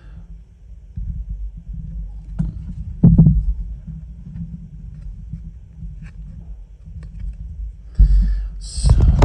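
Plastic model kit parts being handled and fitted together: a steady low rumble of handling with a loud knock about three seconds in and another heavy thump near the end.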